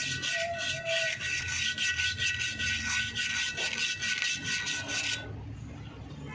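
Hand scraping or rubbing on a steel rear brake drum from a Mahindra Xylo, in quick, even back-and-forth strokes about four a second, stopping about five seconds in.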